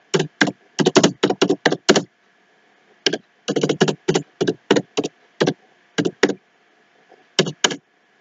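Typing on a computer keyboard: irregular quick runs of keystroke clicks, broken by pauses of about a second, with a last pair of keystrokes near the end.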